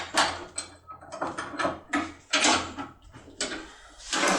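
Small metal clicks and scrapes in a quick, irregular series as a locksmith's foil impression tool and a lock cylinder are handled.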